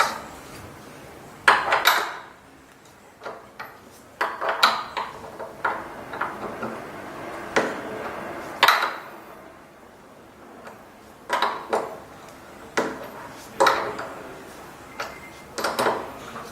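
Irregular metallic clinks and knocks of a wrench on the exercise bike's crank bolt as it is unscrewed and taken out.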